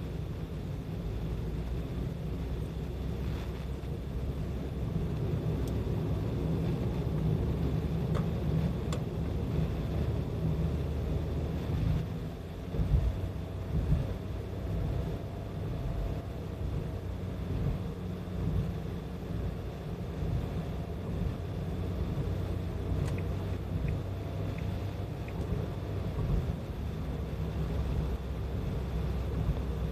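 A car driving at road speed, heard from inside the cabin: a steady low rumble of road and engine noise, with a few louder bumps about halfway through and some faint clicks.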